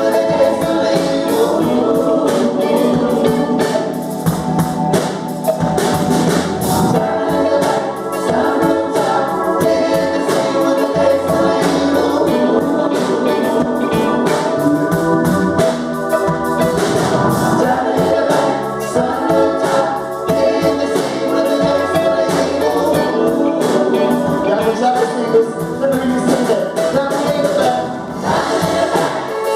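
Recorded gospel music with choir singing over instrumental backing and a steady beat.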